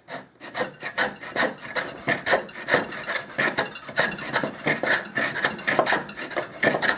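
Handmade wooden skewed rabbet plane cutting along a board's edge in short, quick strokes, about three a second: a dry scraping hiss as the blade takes shavings.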